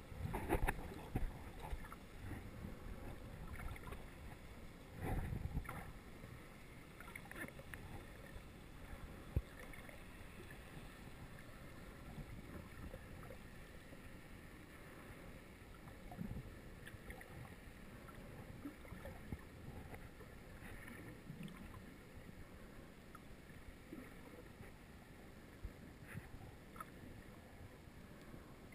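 Muffled underwater water noise through a GoPro's waterproof housing, with a few knocks and swishes in the first couple of seconds and a louder low rush about five seconds in.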